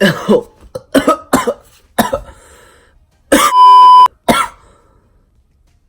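A boy making a string of short coughing, throat-clearing bursts as he strains to force out a burp. A loud steady electronic beep cuts in for under a second, a little past three seconds in.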